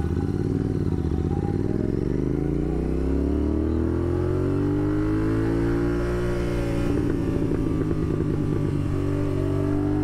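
Royal Enfield Continental GT 650's 648 cc parallel-twin running through a Red Rooster Performance slip-on exhaust under way, rising in pitch over the first few seconds as it accelerates, then holding steady, with a brief rough patch about seven seconds in.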